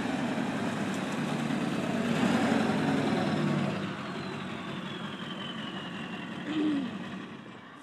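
Ford Super Duty pickup's engine working hard as it drives through mud, loudest about two to three seconds in, then fading as the truck pulls away.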